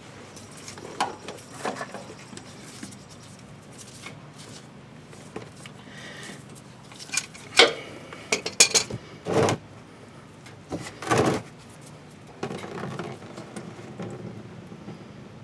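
Metal tool handling at the oil filter: an oil filter wrench clinking and scraping as it is fitted and worked to loosen the spin-on filter, with scattered clicks, a cluster of sharp clanks in the middle and a rougher scraping stretch near the end.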